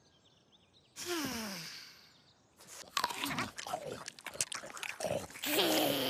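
Cartoon animal vocalizations and slapstick sound effects: a sound with a falling pitch about a second in that fades away, then from about three seconds a busy run of quick clicks and knocks mixed with short pitched animal calls.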